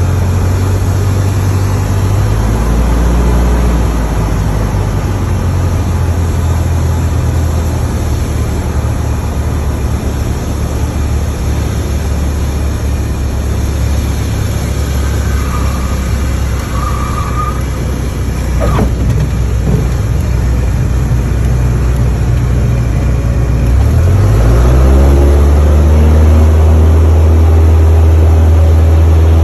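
Light single-engine propeller airplane's piston engine heard from inside the cockpit, running at reduced power through the landing and rollout, then revving up to full power near the end as the plane goes around for a touch-and-go takeoff, after which it runs louder and steady.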